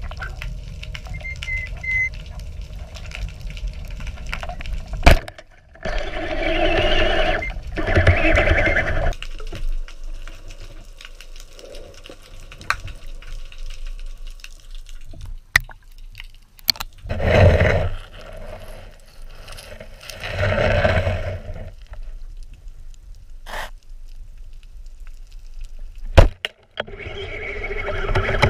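Water rushing and bubbling around an underwater camera in several bursts of a second or two, with a few sharp clicks between them.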